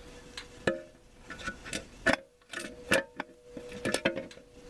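Metal transmission parts knocking and clicking against each other, a few sharp taps about a second apart, as a 4L60E's low roller clutch housing is worked into the case by hand.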